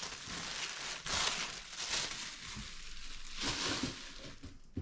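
Packaging crinkling and rustling as a newly boxed cordless drill is unwrapped, with louder crumpling swells about one and two seconds in.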